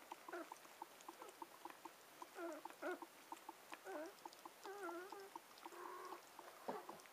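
Six-day-old Siberian husky puppies squeaking and whimpering softly while nursing, over a quick, even clicking of suckling, about five a second. The squeaks come in short wavering bursts in the middle and toward the end.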